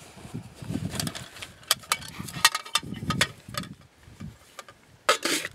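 A titanium canteen with its nested titanium cup and lid being picked up and handled: a run of light metallic clinks and knocks with brief ringing, rustling between them, and a sharper clink near the end.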